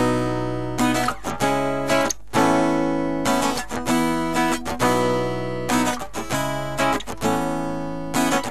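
Acoustic guitar strumming chords, each chord ringing out and fading before the next, as the instrumental intro to a rock song.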